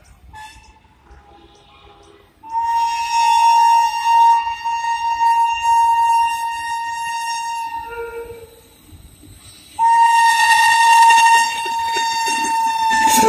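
Indian Railways electric locomotive horn, sounded in two long, steady high blasts as the train approaches: the first lasts about five seconds and the second about three and a half, with a brief lower note between them. The noise of the passing train sweeps in right at the end.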